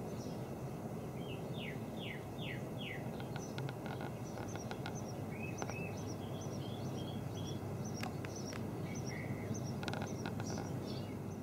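Songbirds calling and singing: many short chirps and whistled notes, with a run of four quick falling notes near the start. A steady low background rumble runs underneath.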